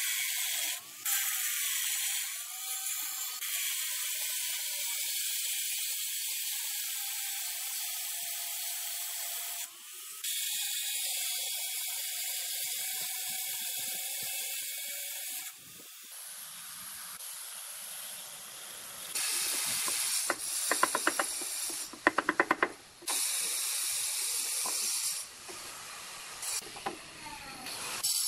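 Angle grinder with a diamond blade wet-cutting a granite countertop, a steady hiss with its motor pitch wavering under load. About halfway through it stops, and later come bursts of rapid sharp knocks.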